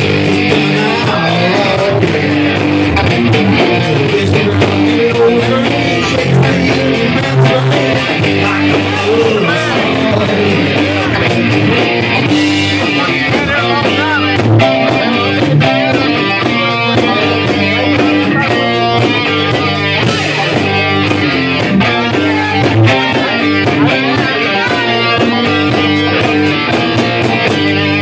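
Live band playing amplified guitar-led rock music over a steady drum beat.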